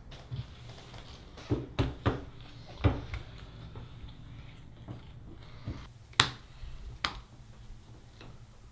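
Playing cards being dealt and handled at a card table: a scattered series of sharp snaps and taps, the loudest about six seconds in.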